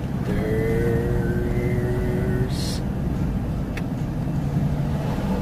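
A car driving along, its engine and road noise heard from inside the cabin as a steady low hum.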